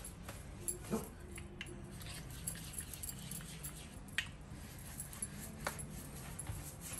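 A dog whimpering faintly, with a brief whine about a second in, over the soft scrubbing of a brush working wax into a stained wooden board and a couple of light taps.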